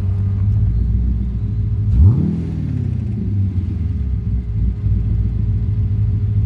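Carbureted Chevy 6.0 LS V8 in a Porsche 944 running under way with a steady low rumble, revving up sharply about two seconds in before settling back.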